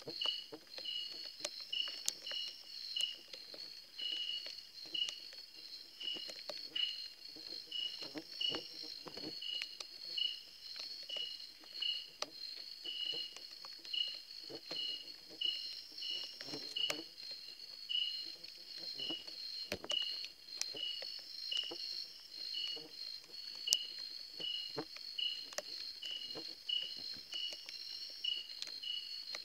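Night insects calling: a steady high-pitched trill of crickets or katydids, with a second insect chirping in a regular pulse about twice a second. Soft irregular rustles and taps sound underneath.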